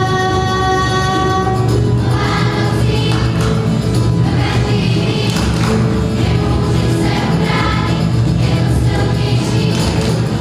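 Choir of children and adults singing a Christmas carol with band accompaniment. A long held note opens, and the full choir comes in about two seconds in.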